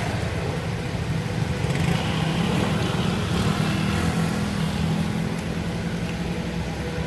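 A motor vehicle engine running steadily close by, a low hum that wavers slightly in level.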